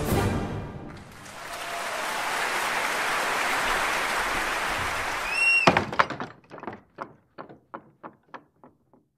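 End of the soundtrack: a rushing swell builds for a few seconds, then a single sharp hit with a brief rising tone that repeats as a fading echo, about three repeats a second, dying away over three seconds.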